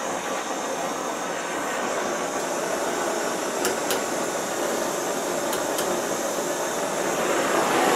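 Oxy-fuel gas torch burning with a steady hiss as its flame heats steel rod clamped in a vise.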